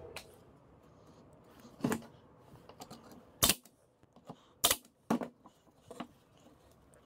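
Pneumatic brad nailer firing two nails into wooden boards: two sharp shots a little over a second apart, the loudest sounds here. Around them come lighter knocks of wood pieces set down and handled on the workbench.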